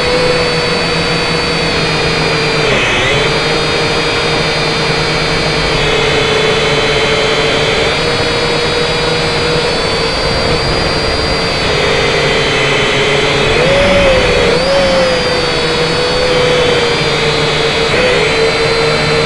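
Electric motors and propellers of an M:TECH Sky Drone Plus toy quadcopter whining steadily in flight, heard up close from the drone itself. The pitch dips and swings briefly several times as the throttle changes.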